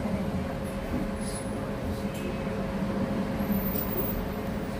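City bus running, heard from inside the cabin: a steady low engine hum over road rumble, with a few faint clicks.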